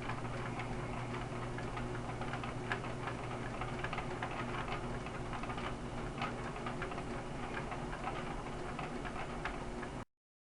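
Rain falling as many small irregular drop taps, over a steady low hum. It cuts off abruptly about ten seconds in.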